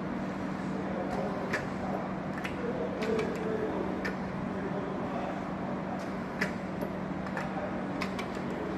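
Semi-automatic bottle labeling machine at work: a steady motor hum with about ten sharp, unevenly spaced clicks as plastic bottles are set on its rollers, labelled and taken off.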